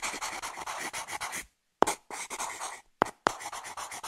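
Pencil scratching on paper, a writing sound effect, in three scribbling bursts with short gaps, each starting with a sharp tap of the tip.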